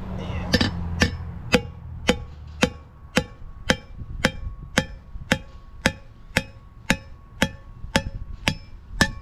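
Hammer striking a Lisle bearing race installer in a steady rhythm, about two blows a second, driving the inner wheel-bearing race into a Chevy C3500HD front hub. After the first few blows the strikes carry a sharp pinging ring, the sign that the race is seated all the way down.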